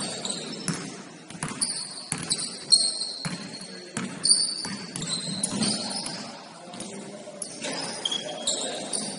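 Basketball game play: a ball bouncing on the court with irregular thuds, and short high-pitched squeaks of basketball shoes on the hardwood floor.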